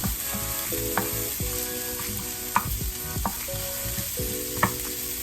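Chopped onions and parsley sizzling in sesame oil in a pan over medium heat, being stirred, with a couple of sharp taps of the utensil against the pan.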